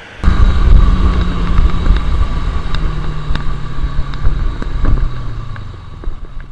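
Motorcycle engine running under wind noise on the bike-mounted microphone, its pitch falling slowly as it winds down, then quieter near the end.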